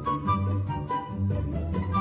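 Background music with a steady beat, a stepping bass line and a light melody.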